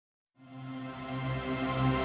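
Silence, then about a third of a second in a sustained musical chord fades in and swells steadily louder.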